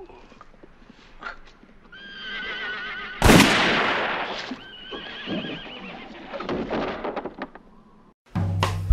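A horse whinnies, then a single loud gunshot cracks out and echoes away, followed by a second whinny and a few faint knocks.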